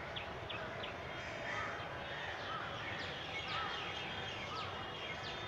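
Several wild birds calling over a steady background noise: quick, high, falling chirps, and a lower arched call repeated about once a second.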